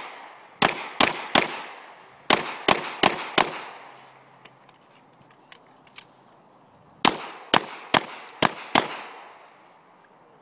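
Pistol shots fired in quick strings, about a dozen in all: three shots, then four, then after a lull of about three seconds with a few faint clicks, five more. Each shot has a short echoing tail.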